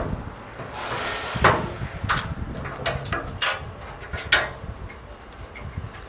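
A series of irregular knocks and bangs, about five over a few seconds, the loudest about one and a half seconds in.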